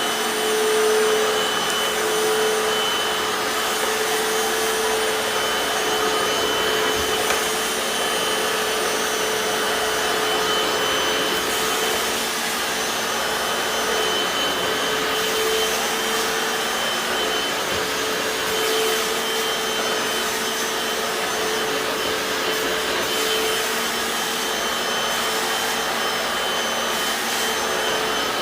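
Hoover FloorMate Deluxe hard floor cleaner running in wash mode: its suction motor whines steadily while the spinning scrub brushes work wet tile.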